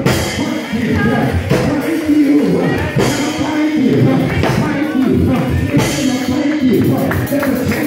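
Gospel music: singing over instruments, with a steady beat and hand clapping.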